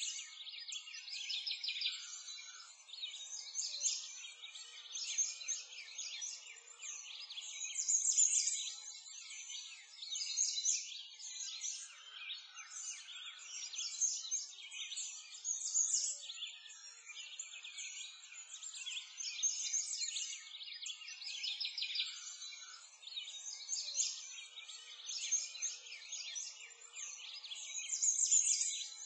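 Many small birds chirping and singing together in a continuous, busy chorus of high, quick chirps with no low sounds under them.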